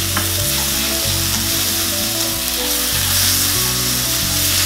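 Beef slices and onion wedges sizzling in a wok of hot oil over high heat as they are stir-fried with chopsticks. Background music with sustained low notes plays underneath.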